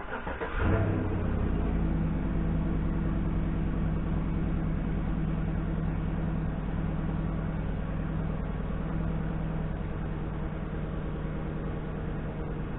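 An engine that has just started, revving up briefly in the first second, then running at a steady speed.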